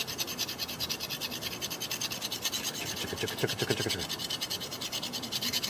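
Fast, regular back-and-forth scraping of a hand tool on steel, several strokes a second, cleaning rust and scale off the sliding surfaces of a disc brake caliper bracket so the caliper won't stick.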